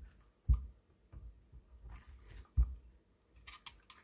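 Flat-blade screwdriver prying the bayonet ring off a Canon EF 70-200mm f/4 lens: three dull knocks of the handled lens, light scrapes and clicks between them, and a quick run of sharper metal clicks and scraping near the end.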